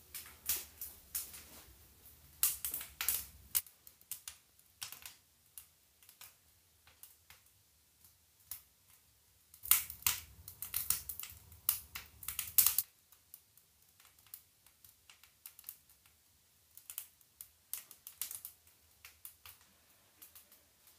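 Scattered clicks, taps and knocks of someone moving about in a small wooden sauna room. They come thicker for about three seconds at the start and again from about ten to thirteen seconds in, where a low rumble comes with them.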